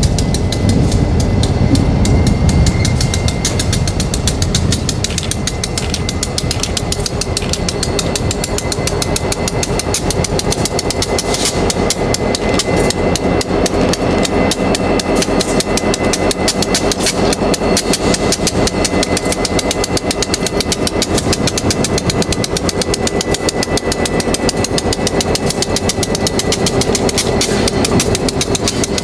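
Diesel-electric locomotive engine running close by with a steady, rapid pulsing throb as the locomotive creeps along the track.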